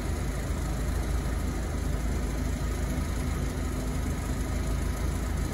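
Car engine idling steadily, a low, even rumble heard from inside the car.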